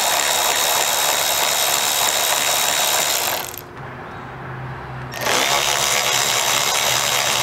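Cordless power tool with a socket backing out the Torx screws from a convertible top's frame rail, running with a steady whine. It runs for about three and a half seconds, stops briefly, then starts again about five seconds in.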